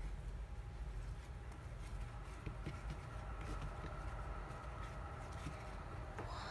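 Faint scattered ticks and light squishes of slime being handled, over a steady low hum.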